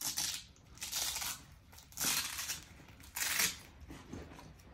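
Four short rasping strokes as a soft gun carrying bag is opened and handled, most likely its zipper being pulled in stages.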